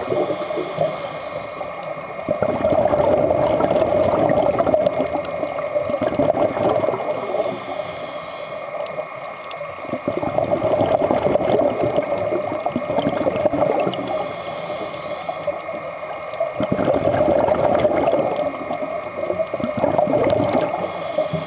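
Scuba regulator breathing underwater: a short high hiss of inhalation about every seven seconds, each followed by a few seconds of louder bubbling exhalation, three full breaths in all.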